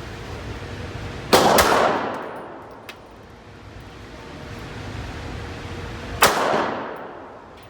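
Pistol shots ringing out with a long echoing decay: two in quick succession a little over a second in, and another about five seconds later.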